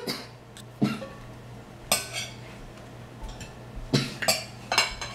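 A handful of sharp clinks and knocks of tableware against a plate, spaced roughly a second apart, over a faint steady hum.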